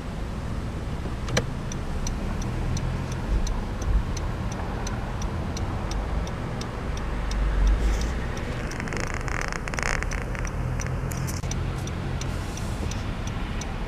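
A car's turn-signal indicator ticking at an even pace while the car waits to turn, over the low hum of its idling engine. A louder rushing sound passes around the middle.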